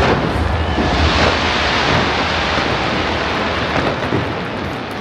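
Dense fireworks barrage: continuous booms and crackle merging into a loud rumble, easing off near the end.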